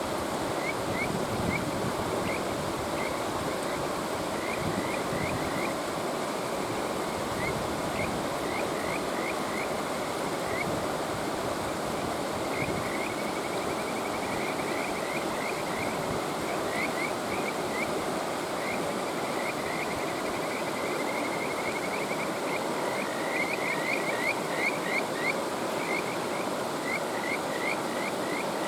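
Kajika frogs (Buergeria buergeri) calling in runs of short, quickly repeated high notes over the steady rush of a mountain stream. The runs come again and again, several at once, with the loudest and densest calling near the end.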